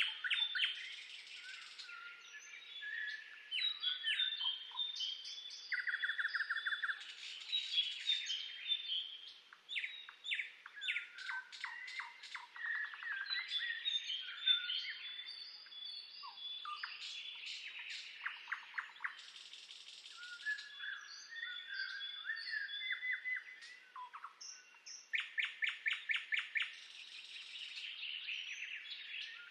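Several songbirds singing and calling together: overlapping chirps, fast trills and short whistles throughout.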